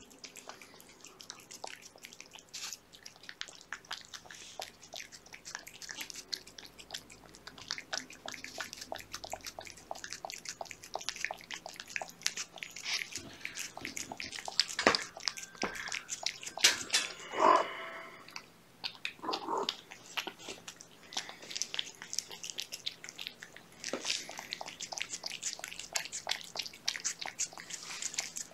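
A cat and kittens eating canned cat food off a paper plate: quick, wet chewing and lapping clicks, with a short pitched call a little past halfway.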